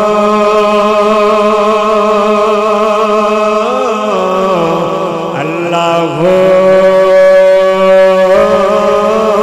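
A man's amplified voice singing long, drawn-out, ornamented notes of a devotional zikr of "Allah", over a steady low drone.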